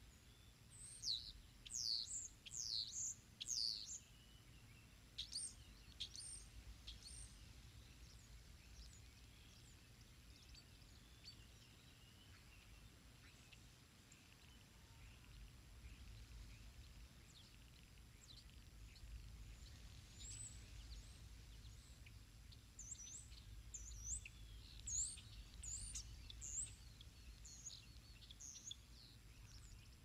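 Faint songbird chirping in quick clusters of short, high notes, thickest in the first few seconds and again in the last third. Underneath is a low wind rumble on the microphone that grows stronger in the second half.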